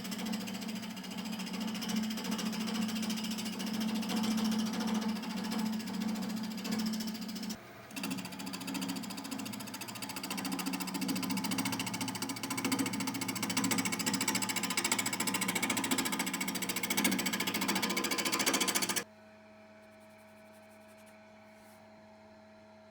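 Wood lathe running with the spinning red gum workpiece being worked, a steady machine drone under dense scraping noise. It breaks off briefly about a third of the way in and cuts off suddenly near the end, leaving a faint mains hum.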